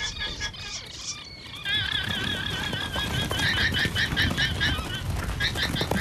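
Guanacos giving shrill, quavering alarm calls: a run of whinny-like trills that starts about a second and a half in and comes in quick pulses, the warning that sends the herd running.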